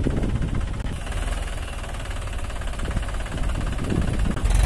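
Mahindra 265 DI tractor's three-cylinder diesel engine running steadily with a knocking beat as the tractor strains to pull its loaded trolley out of soft mud. A loud thump comes near the end.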